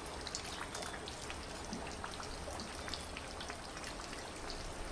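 Faint steady trickle of water with a scattered patter of small drips and tiny splashes on a pond's surface.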